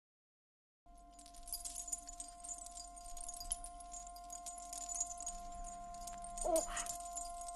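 Quiet opening of a soundtrack, starting after about a second of silence: held drone tones under a crackling hiss, with a short rising sweep about six and a half seconds in.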